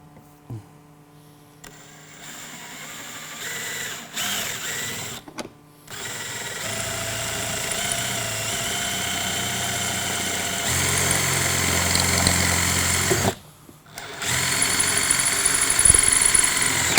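Power drill boring out the rivets that hold a latch on a shipping case. It runs in stretches, starting about two seconds in, steady from about six seconds, then stops briefly and starts again, grinding unevenly through the last rivet heads.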